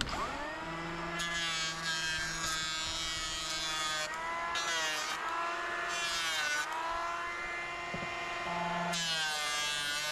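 Electric hand planer running along a cupped board to shave it flat: a steady motor whine that dips in pitch several times as the cutter bites into the wood, with bursts of hissing shavings.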